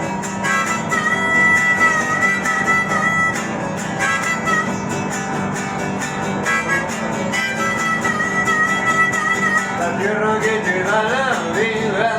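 A song with a steady beat, guitar and a long-held high melody line. A voice starts singing about ten seconds in.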